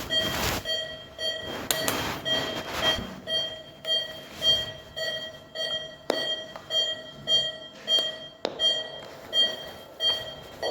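Fetal heart monitor picking up an unborn baby's heartbeat: a pulsing swish with a short electronic beep on each beat, about two beats a second, a rate within the normal fetal range.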